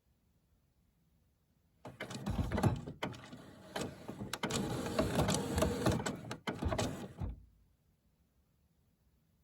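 HP Photosmart Plus printer's internal mechanism running with a string of sharp clicks. It starts about two seconds in, lasts about five seconds and stops abruptly: one of the odd noises the printer is making.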